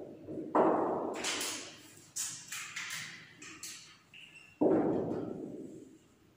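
Marker writing on a whiteboard: a few sharp taps and strokes, each fading away over about a second, in a room with some echo.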